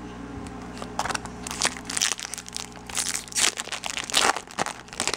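Foil wrapper of a Bowman Chrome trading-card pack being torn open and crinkled by hand: a run of irregular crackles starting about a second in.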